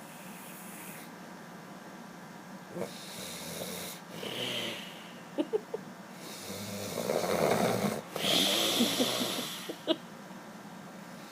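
A man snoring in his sleep: two slow, heavy breath cycles, the second louder, with a low buzzing snore as he draws breath. A few small clicks come between and after the breaths.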